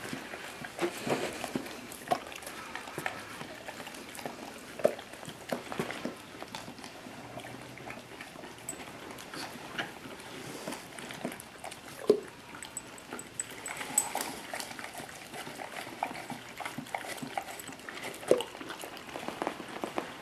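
Dog licking and lapping ice cream from a hand and off the floor: irregular wet smacks and slurps.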